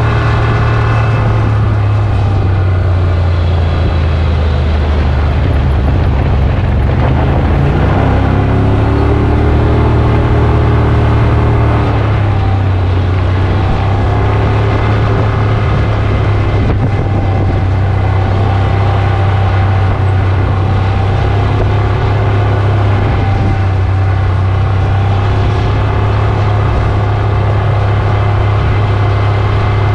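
Can-Am Maverick X rs side-by-side's engine running steadily while driving along a dirt road, with a strong low hum; its pitch rises and shifts a little now and then as the speed changes.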